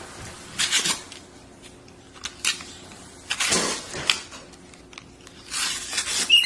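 Cardboard-and-plastic toy blister packaging crinkling and tearing in several short bursts as a capuchin monkey pulls and bites at it.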